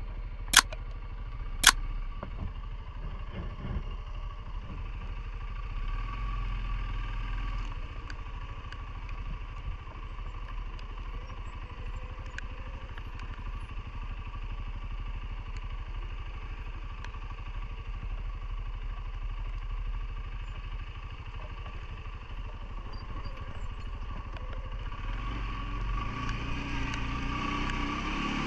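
CFMoto ATV engine running steadily at low revs, picking up and getting louder near the end. Two sharp clicks come in the first two seconds.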